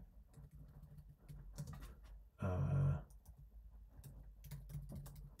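Computer keyboard typing: scattered key clicks. A short wordless voice sound, like a hum, comes about two and a half seconds in and is the loudest thing.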